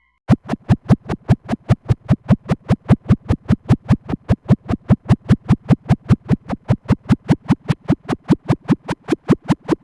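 Synthesized sci-fi sound effect: a fast, even train of electronic pulses, about four and a half a second, each a short sweeping zap with a deep body. It starts just after the opening and keeps the same beat throughout.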